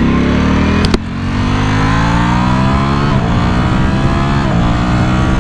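Ducati Streetfighter V4 Lamborghini's V4 engine accelerating under way, on its stock catalysed and muffled exhaust: the pitch rises, drops at an upshift about three seconds in, rises again and drops at a second upshift about four and a half seconds in, then holds steady. A sharp click about a second in.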